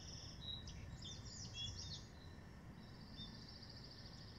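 Bald eagle calling: faint, high, thin chittering trills and a string of short falling piping notes, over low wind and water noise.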